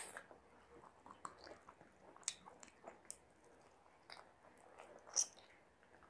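Close-up mouth sounds of a person eating chicken biryani by hand: chewing the rice with scattered wet smacks and clicks. A sharp click about five seconds in is the loudest.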